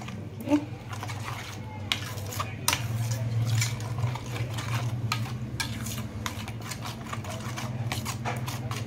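A spoon stirs a thick, wet spice paste in a stainless steel plate, with repeated scrapes and clicks of the spoon against the metal. A steady low hum runs underneath.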